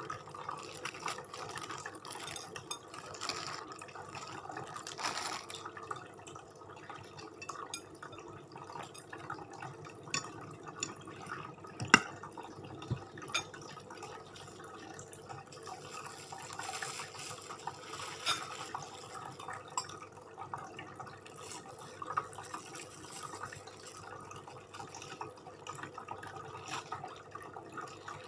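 Close-up eating and food-handling sounds: wet mouth clicks and small irregular taps, with one sharp click about twelve seconds in.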